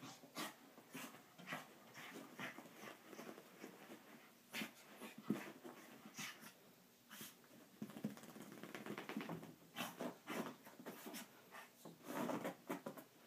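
Chihuahua rolling and rubbing itself on a carpet after a bath: irregular scuffling of fur against carpet, mixed with the dog's breathing.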